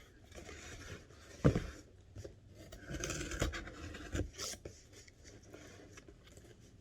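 Scraping and rustling on a cardboard box and its packing material, with a sharp knock about a second and a half in and another around four seconds in.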